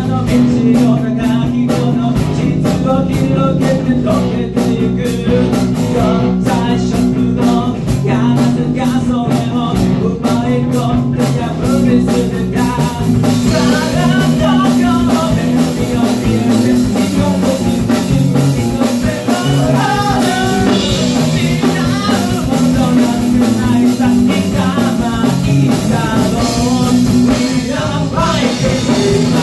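Rock band playing live in a small rehearsal room, with electric guitar, bass guitar and drums. Cymbals and drums are busiest in the first twelve seconds or so.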